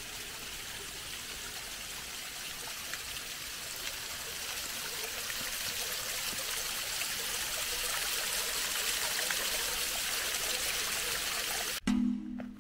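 Small waterfall trickling and splashing down a mossy rock face: a steady rush of running water that slowly grows louder, cut off suddenly near the end by music.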